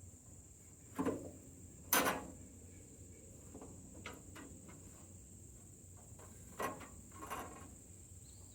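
A sawmill band blade knocking and clanking against the wheel housing as it is worked onto the wheels, snagging on rivets at the top; five or so separate knocks, the loudest about two seconds in.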